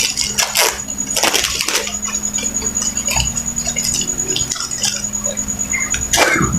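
Rustling and light knocks of packaging being handled by hand, busiest in the first two seconds and again near the end.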